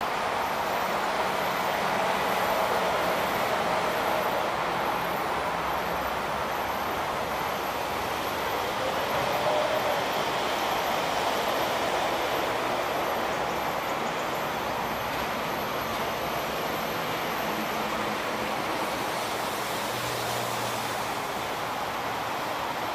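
Steady outdoor background noise: an even hiss with a faint hum and no distinct events, typical of distant traffic.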